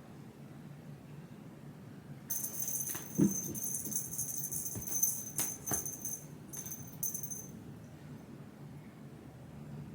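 Bright metallic jingling, like a small bell or keys shaken, for about five seconds, with a loud knock near its start and a few sharper clicks.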